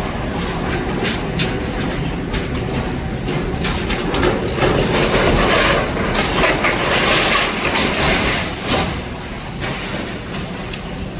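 Demolition excavator at work: its engine runs steadily under a dense clatter and crunch of breaking rubble and masonry, loudest through the middle stretch.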